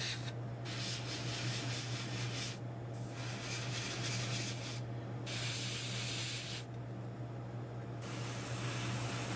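Airbrush spraying paint at low pressure: a steady hiss that stops briefly four times, the last break over a second long, as the trigger is let off between passes. A steady low hum runs underneath.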